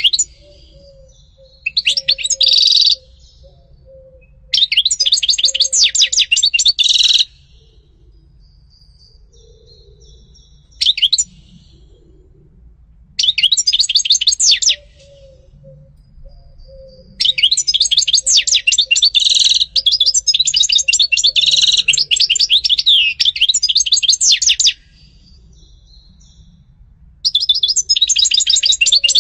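European goldfinch singing: spells of fast, high twittering song, from a fraction of a second to about seven seconds long, broken by short pauses, the longest spell running through the middle.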